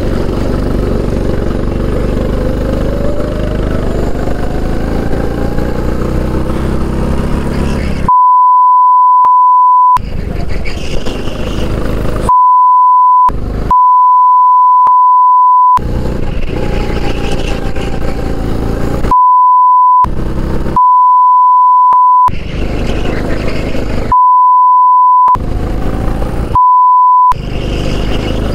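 Kart engine at full throttle, its pitch climbing over the first eight seconds as the kart accelerates. From there it is cut seven times by a loud, steady censor bleep that blanks out everything else, with the engine heard between the bleeps.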